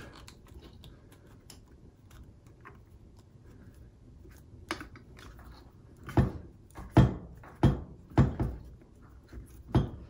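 Hands twisting a wire nut onto a garbage disposal's wires: faint rustling and small clicks, then from about six seconds in a handful of dull knocks as the disposal unit is handled on the countertop.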